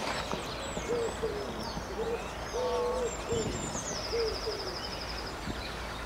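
Birds calling: a series of about seven short, low hoots, with faint high chirps and a rapid high trill about four seconds in.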